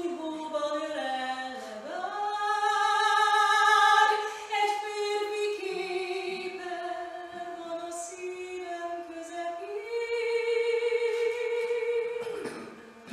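A woman singing solo with no accompaniment, in long held notes with vibrato. The phrase swells loudest about three to four seconds in, and a final long held note stops shortly before the end.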